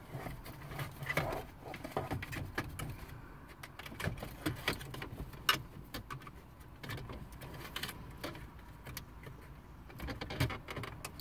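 Irregular small plastic clicks and rattles as wiring plugs are prised off the back of a 2001 Saturn L200's plastic radio bezel with a small flathead screwdriver.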